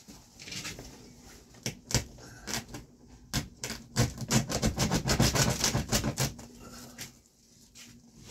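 Tarp and stick covering of a hut roof crackling and clicking as hands grip and pull at it: scattered clicks at first, then a dense rapid crackle for about two seconds halfway through.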